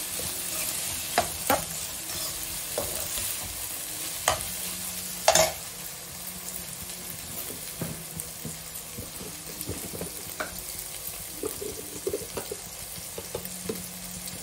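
Soya chunks with onion and tomato sizzling in a nonstick kadai, stirred with a steel spoon that knocks and scrapes against the pan several times in the first half, loudest about five seconds in. The sizzle settles a little quieter after that.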